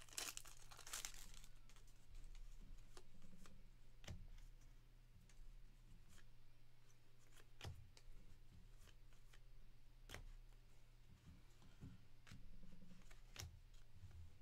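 Faint crinkling and tearing of trading-card pack wrappers, heaviest in the first second or so, followed by a few scattered sharp ticks and taps as the cards are handled.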